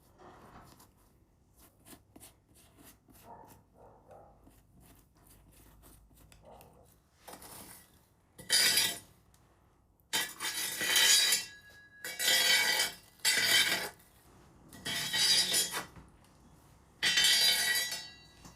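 Kitchen utensils and dishes clattering: faint scattered clicks, then five or six louder bursts of about a second each with a light metallic or glassy ring.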